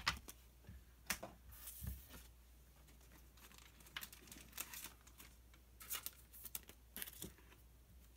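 Faint, scattered rustles and light taps of Pokémon trading cards and their foil packaging being handled, with a sharp tap right at the start.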